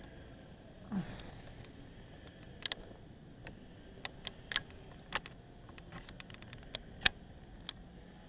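Scattered sharp clicks and taps over faint room tone, about fifteen in all, the loudest near the end. A short low thump with a falling pitch comes about a second in.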